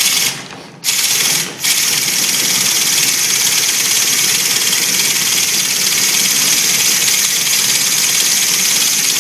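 Small double-acting single-piston steam engine running on compressed air: a loud, steady hiss of air rushing through it as the flywheel spins. The air comes on abruptly, cuts out twice in the first second and a half or so, then holds steady.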